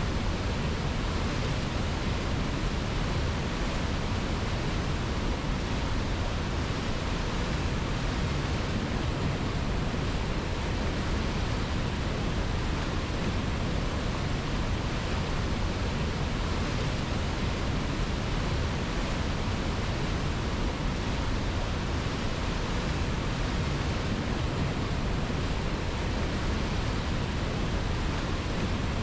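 River water rushing steadily, an even hiss and rumble with no distinct splashes or changes.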